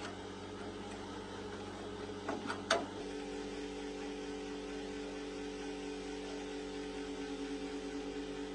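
Small electric motor running with a steady hum, with a few sharp knocks about two and a half seconds in.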